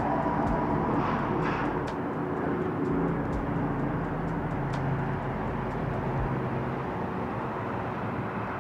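Steady road-traffic noise from vehicles crossing the highway bridge, with a low engine hum that fades out about six seconds in.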